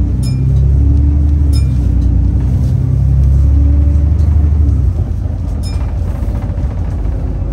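Interior of an Alexander Dennis Enviro 400 double-decker bus under way: a heavy, steady low diesel engine and drivetrain rumble that drops noticeably about five seconds in as the engine eases off. A few short clicks or rattles come from the cabin.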